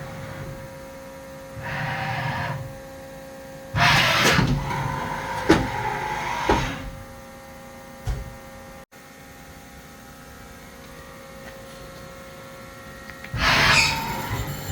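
Haas SL30T CNC lathe powered up, with a steady machine hum. Several short bursts of mechanical noise and sharp clicks break in, the loudest and longest about four seconds in, with a single thump about eight seconds in and another burst near the end.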